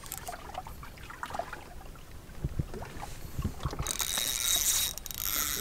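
Fishing reel being cranked as a hooked fish is played, its gears and ratchet clicking, with a louder stretch of high buzzing about four seconds in. Low wind and water noise lies underneath.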